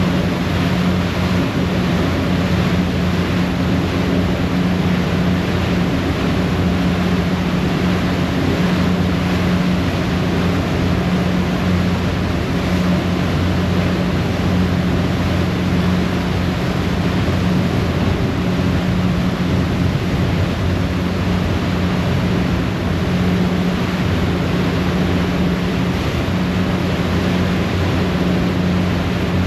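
A harbour ferry's engines running steadily at cruising speed, a constant low drone, over the rushing churn of water in the propeller wake.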